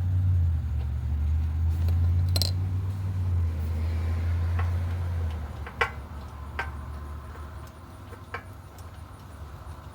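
A few separate sharp metallic clicks and taps from a socket wrench working a spark plug out of a small engine. Under them is a low steady rumble that drops away about five and a half seconds in.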